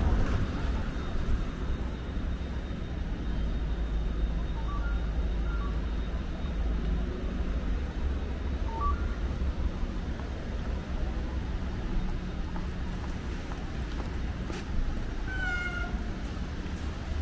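Steady low rumble of city street ambience and distant traffic, with a few faint short chirps. Near the end there is one short, high, meow-like cry.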